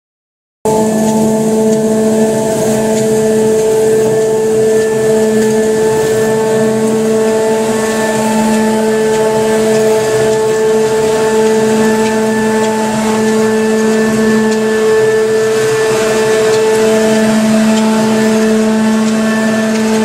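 AMANO walk-behind floor scrubber running as it moves along, a steady motor hum with a constant pitched tone over a whooshing noise. It starts abruptly just under a second in.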